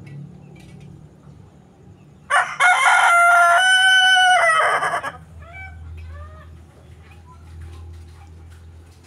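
An ayam ketawa (laughing chicken) rooster crows once, loudly, for about two and a half seconds. The crow opens in rapid stuttering notes and ends in held notes, followed by a few faint short calls.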